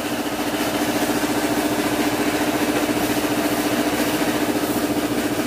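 Yamaha Mio Soul i 125 scooter's single-cylinder fuel-injected engine idling steadily with an even, fast pulse.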